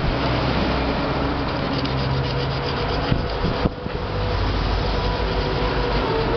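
Steel wool scrubbed hard back and forth on the rim of an aluminium pressure-cooker lid, a continuous scratchy rasp with one short break about two thirds through. The work smooths the worn, chewed-up edge so the rubber gasket seals properly.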